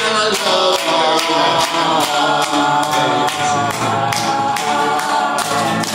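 A group of voices singing in harmony over a steady beat of about three strokes a second.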